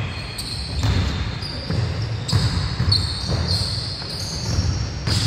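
Basketball bouncing on a hardwood gym floor, repeated thuds, with sneakers giving short high squeaks as players cut and stop, echoing in a large hall.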